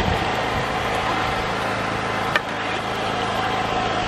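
A small engine running steadily with a constant hum, and a single sharp click about two and a half seconds in.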